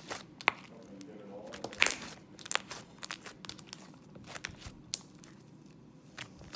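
Thick, glossy slime squeezed and stretched by hand, giving off irregular sharp clicks and small pops. The loudest pops come about two seconds in.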